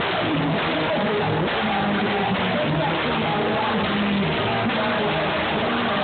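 Congregation singing loudly along with live worship music, guitar among the instruments, in a dense, unbroken wall of voices and band.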